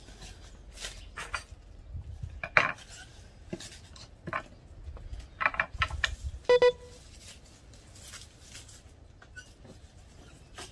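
Scattered knocks and clatter of a bowl and kitchen utensils during hand food preparation. One clear ringing clink comes about six and a half seconds in.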